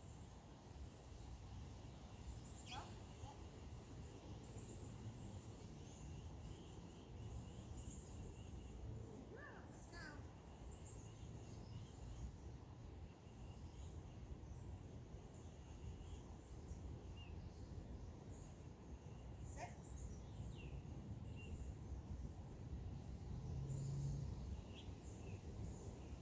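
Quiet summer field ambience: a steady low background rumble with several short, falling bird calls scattered through it. Near the end comes a brief low hum.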